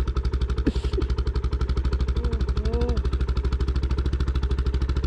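Bajaj motorcycle's single-cylinder engine idling with a steady, even beat, running again after failing to start on a cold morning.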